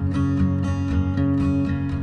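Background music: strummed acoustic guitar in a steady rhythm, with no singing.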